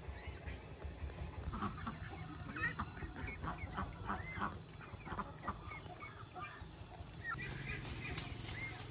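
Farm fowl calling in a run of short calls, thickest from about a second and a half in to about six seconds and picking up again near the end, over a steady high-pitched tone.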